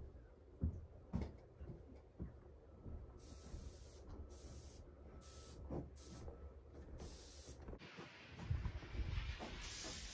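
Aerosol spray can hissing in several short sprays, then spraying continuously for the last couple of seconds. There are a few soft thumps at the start.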